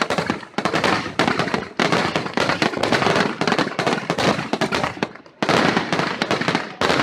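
Aerial fireworks going off in a dense, rapid barrage of bangs and crackling. The barrage thins briefly about five seconds in, then starts again and cuts off sharply at the end.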